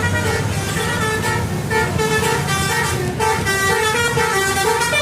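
A bus's 'telolet' musical horn playing a quick tune of short notes that step up and down, over the low noise of the bus.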